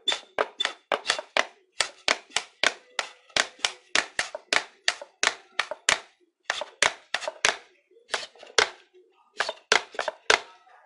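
Plastic squeeze bottle of watery tie-dye being squeezed again and again, each squeeze giving a short sharp spurt through the nozzle, about four a second with a couple of brief pauses.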